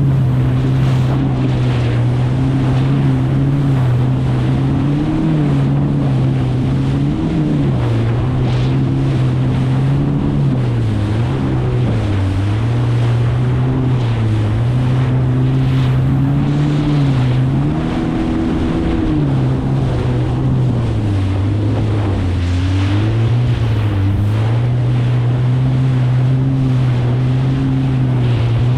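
Kawasaki STX 160X jet ski's four-cylinder four-stroke engine running at speed, its pitch dipping and rising every few seconds as it rides through chop, with wind and water rushing past.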